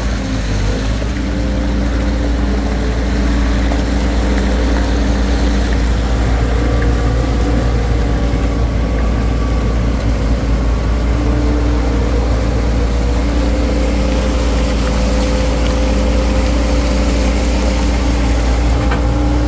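Engine of a compact loader running steadily as it drives through shallow water, the tyres sloshing. A steady low drone carries a fainter whine that wavers in pitch.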